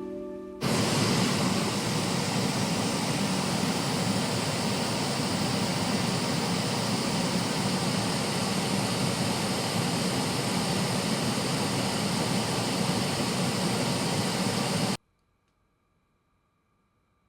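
Steady, even hiss of broadband noise that starts suddenly about half a second in and cuts off abruptly about 15 seconds in, leaving near silence.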